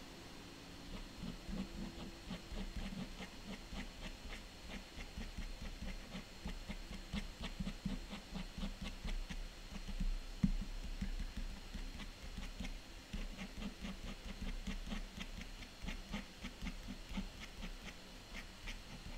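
Rapid, irregular short strokes of a white pen flicked across toned paper while drawing grass, several strokes a second, starting about a second in.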